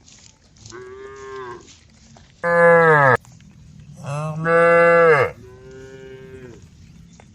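Cows mooing: four long moos in a row, the middle two loud and dropping in pitch at their ends, the last one fainter.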